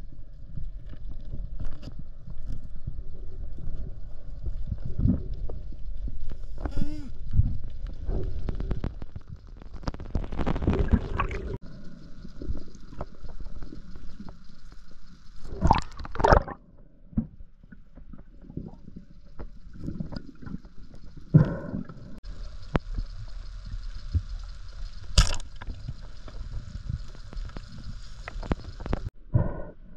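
Underwater sound from a spearfisher's camera: a steady low rumble of water with gurgling, and scattered clicks and sharp knocks from the speargun, shaft and line being handled, the loudest about sixteen and twenty-five seconds in.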